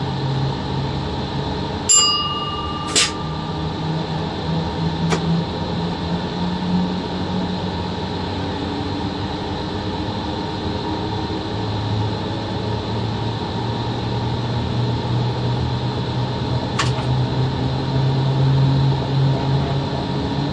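Cab interior of a VL80 electric freight locomotive on the move: a steady hum with low tones that slowly shift in pitch. A short high beep comes about two seconds in, with a few sharp clicks after it, once again near the end.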